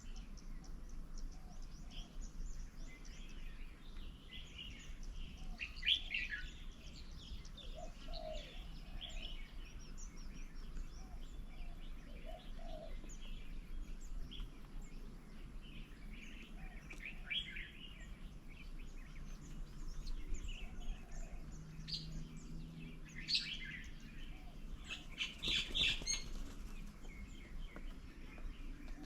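Several songbirds chirping and calling at and around a garden bird table, short scattered chirps with a few louder bursts of calls, the loudest near the end.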